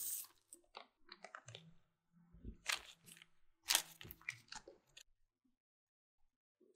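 Dry crunching and crackling handling sounds: a run of short crackles and clicks, the loudest about three and four seconds in, stopping about five seconds in.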